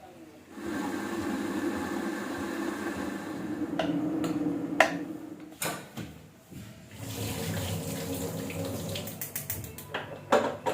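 Water running from a tap into a sink in two stretches, with several sharp clicks and knocks, a quick run of them near the end.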